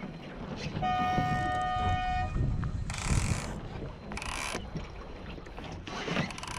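A single steady horn blast, about a second and a half long, sounds about a second in, of the kind a dinghy race committee uses for start signals. Low wind rumble on the microphone runs underneath, with a few short rushes of wind and water noise later on.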